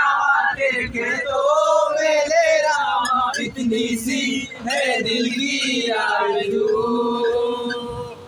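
A group of young men singing and chanting together in unison, ending on a long held note.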